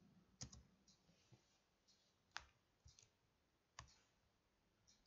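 Faint computer mouse clicks, four or five scattered sharp clicks against near silence, the sharpest about halfway through.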